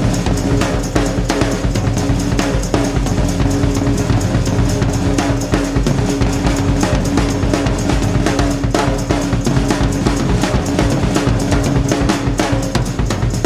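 Background music with a fast, steady drum beat over held tones.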